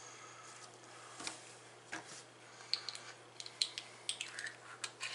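Light clicks and taps of a small plastic paint dropper bottle being handled, capped and set down, coming more often in the second half.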